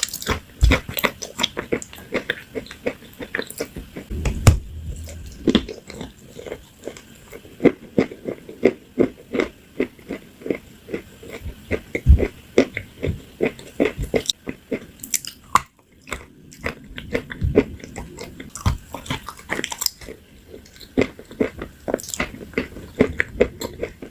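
A person biting and chewing crunchy food, a dense run of sharp crunches with a brief pause about sixteen seconds in.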